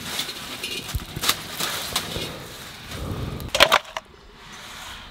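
Metal cookware being handled: a large metal kadai on a wood-fired clay stove and steel utensils give a few light clinks and knocks. A louder metallic clang with a short ring comes a little after three seconds in.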